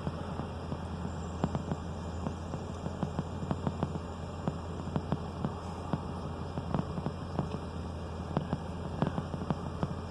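Steady low hum with irregular faint clicks and ticks scattered throughout.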